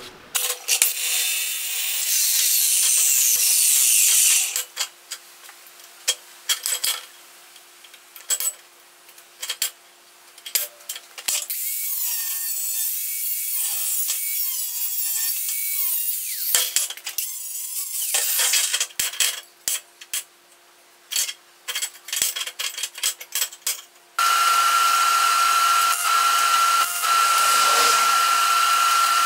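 Angle grinder cutting and grinding steel box section: passes of several seconds alternate with many short bursts and brief gaps. Over the last five seconds a power tool runs steadily with a high whine.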